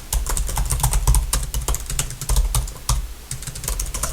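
Fast, irregular typing on a computer keyboard, close up: a dense run of light clicky keystrokes.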